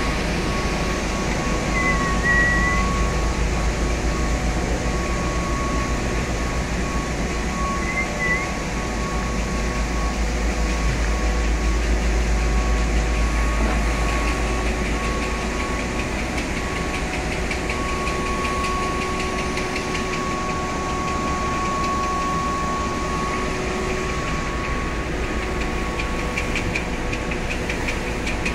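Machinery of a fortified (artificial) rice production line running steadily: a constant mechanical hum with a steady whine, and a deep low rumble that drops away about halfway through. Two brief high squeaks come early on.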